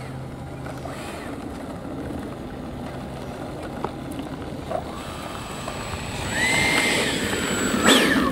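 Electric ducted fan of a radio-controlled F-15 model jet taxiing after landing. A low steady rush runs for most of the time. About six seconds in, the fan's whine rises, holds and falls, and a quick throttle blip near the end sends it sharply up and back down.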